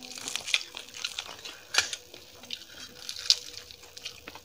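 Close-miked eating sounds of crisp fried poori being torn and chewed: a run of crackly clicks and crunches, with two sharper snaps about two and three seconds in.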